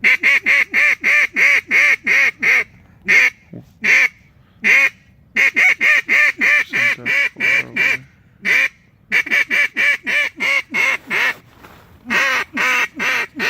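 Mallard duck call blown in rapid runs of quacks, about four to five a second, broken by a few short pauses, calling to incoming ducks.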